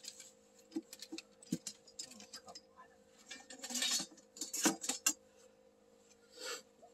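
Gear being handled and pulled out of an ice-fishing sled: scattered clinks, knocks and rustles, with a longer scraping rustle a little before four seconds in and another near the end, over a faint steady hum.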